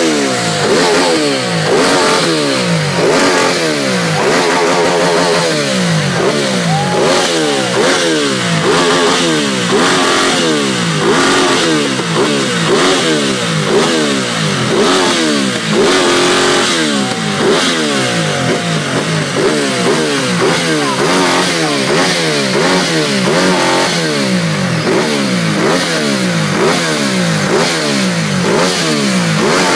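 Ducati L-twin motorcycle engines revved over and over in quick blips, the pitch climbing and dropping again roughly once or twice a second, continuously and loudly.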